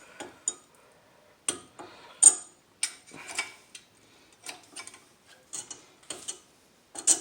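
Metal brake pad backing plates clicking and clinking against the caliper bracket's metal abutment clips as the pads are worked into place, about a dozen irregular sharp clicks.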